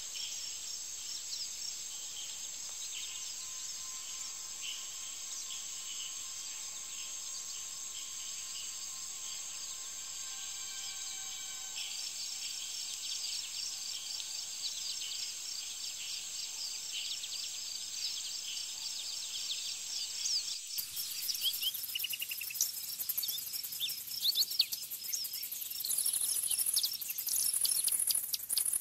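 Summer field ambience of insects trilling steadily, with many short high chirps over it. About 21 seconds in the sound breaks abruptly to a louder, higher shimmering, jingling sound whose level rises and falls unevenly.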